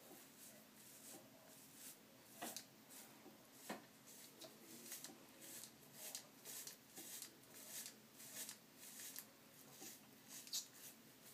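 Faint, repeated short scraping strokes of a Gillette ProGlide Styler razor cartridge drawn over lathered beard stubble on the neck, coming about twice a second in the middle.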